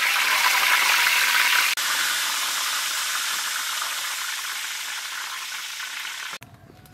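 Hot oil sizzling from a deep-frying snakehead fish. The sizzle is a steady hiss that briefly drops out about two seconds in, eases off slowly and cuts off abruptly near the end.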